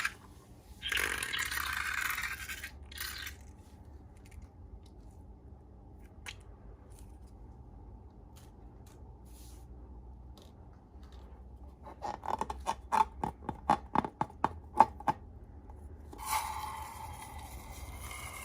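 Slime and balloon handling: a scraping rustle near the start, then a run of sharp clicks and pops about twelve seconds in, then a hissing scrape with a faint thin tone near the end.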